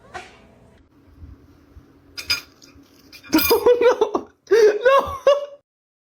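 A high-pitched laugh in two runs of quick bursts, after a sharp clink or knock.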